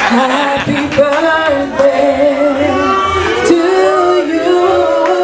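A woman singing into a microphone with long, held notes, other voices joining in.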